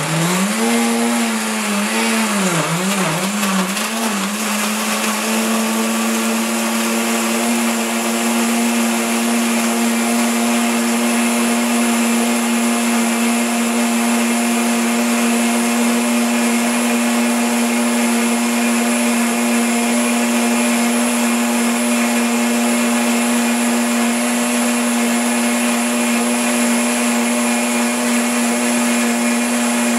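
Omni Blender countertop blender running on high, its six-blade wet/dry blade chopping a whole grapefruit, strawberries, carrot, pumpkin seeds and water into a smoothie. The motor pitch rises and wavers for the first few seconds while the chunks are caught and broken up, then settles into a steady, even whine as the mix turns smooth.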